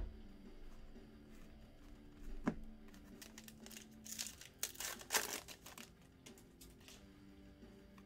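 A foil trading-card pack wrapper being torn open and crinkled by hand, with a burst of rustling about four to six seconds in. A single light knock comes earlier, about two and a half seconds in.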